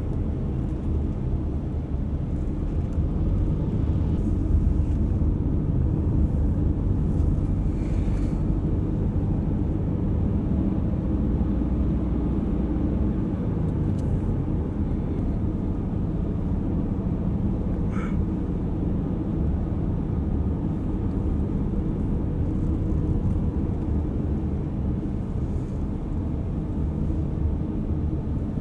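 Steady low rumble of a moving vehicle's road and engine noise.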